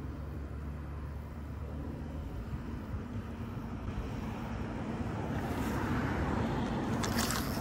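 Steady low outdoor rumble like distant road traffic, growing a little louder toward the end, with a short sharp crackle near the end.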